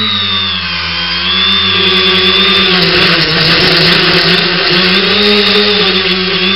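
Brushless motors and propellers of an X900 tricopter whining in flight, the pitch sagging and rising again as the throttle changes, with a rougher, louder stretch midway.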